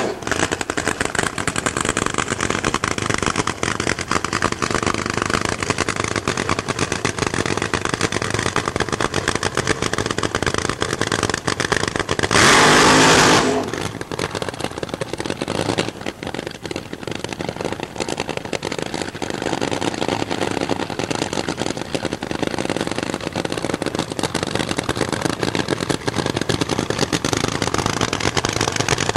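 Nitro-burning supercharged V8 of a fuel funny car running at a rough, rapid-pulsing idle. About twelve seconds in, the engine goes to full throttle for about a second, the burnout, then drops back to idle.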